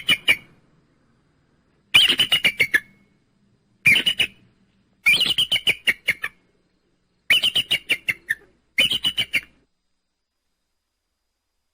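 Eagle calling: six bursts of quick, high chattering notes, each burst about a second long, sliding slightly down in pitch.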